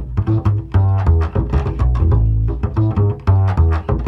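Background music carried by a plucked bass line: short low notes in a quick rhythm.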